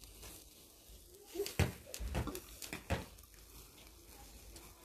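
Metal tongs knocking and clicking against a charcoal grill grate a few times while chicken is turned, with most of the knocks coming in the middle. A low steady rumble sits underneath.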